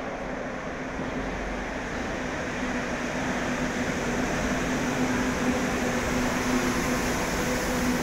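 Madrid Metro Line 1 train pulling into the station and rolling past along the platform: a steady rushing rumble with a low steady hum, growing slightly louder as it comes alongside.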